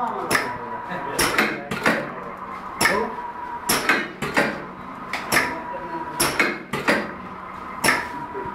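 Automatic bearing radial-clearance measuring machine cycling: its pneumatic cylinders and the parts moving through it give sharp clacks, often in pairs, about one or two a second. A faint steady high tone comes and goes underneath.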